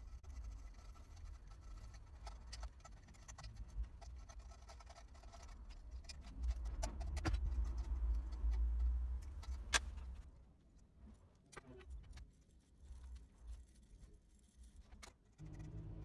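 Faint handling sounds of fingers working serving thread onto a bowstring on a jig: scattered small clicks and ticks, with a low rumble that swells for a few seconds in the middle and a single sharper click as it fades.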